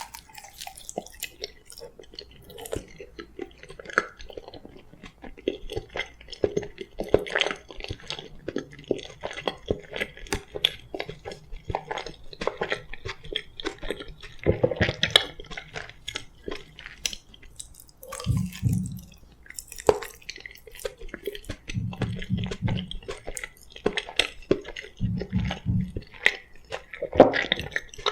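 Close-miked chewing and mouth sounds of a person eating boiled sweet potato: irregular wet smacks and soft crunches. Several low rumbles come in during the second half.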